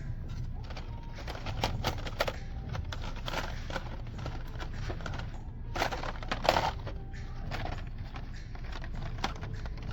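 Blister-packed diecast toy cars clicking and crinkling as they are handled and flipped through on store pegs, with a louder clatter about six seconds in, over a steady low hum.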